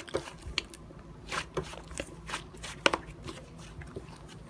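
Slime being pressed and squished by hand, giving irregular small crackling clicks and pops.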